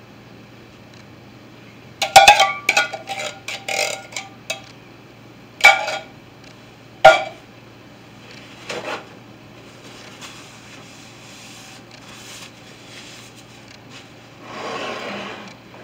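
A metal spoon clinking and scraping against a tin can and a glass baking dish, with a quick run of ringing clinks a couple of seconds in and two single clinks a few seconds later. A short rustling near the end.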